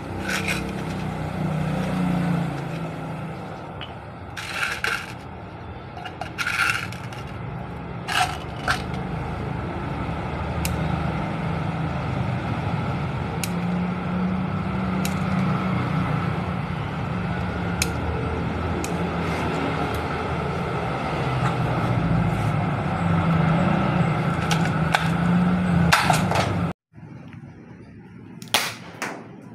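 Scattered clicks and a few scrapes from a spring-powered hard-PVC Welrod MK II replica airsoft pistol being handled, over a steady low background rumble. Near the end the sound cuts out sharply and comes back quieter, with one short burst.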